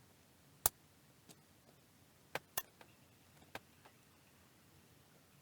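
A few light, sharp clicks and taps from small hand tools on the repair bench, irregularly spaced, with two in quick succession about halfway through.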